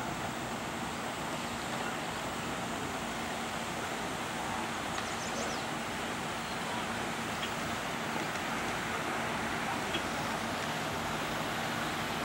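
Steady outdoor background noise, an even hiss with a faint low hum under it and no distinct event.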